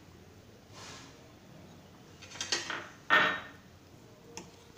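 Kitchenware being handled: a few short clinks and clatters about two and a half seconds in, then a louder clatter just after three seconds, as the glass used for the sugar and the steel pot of milk are handled.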